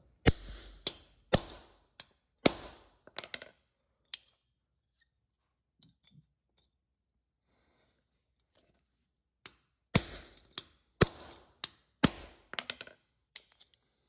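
Hammer striking a hammer-type lug crimper, smashing a terminal lug down onto 6-gauge battery cable: a run of sharp metal blows, a pause of about five seconds, then another run of blows.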